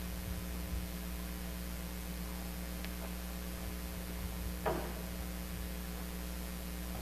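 Steady electrical mains hum, with a brief faint clatter about four and a half seconds in.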